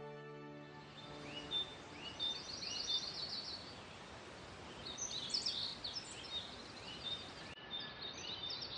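Birds chirping and calling over a steady outdoor hiss: short arching notes repeated again and again, with clusters of higher chirps that are busiest about five seconds in.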